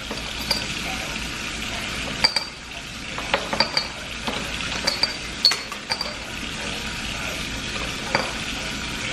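Hookah parts being handled: scattered light metallic clinks and taps, about a dozen, over a steady sizzling hiss.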